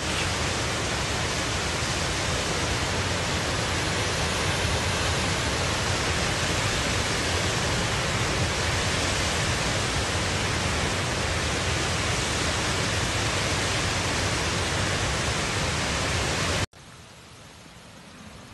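Muddy floodwater pouring over a tiered rock waterfall: a loud, steady rush of falling water. About three-quarters of a second before the end it cuts off suddenly to a much quieter steady hiss.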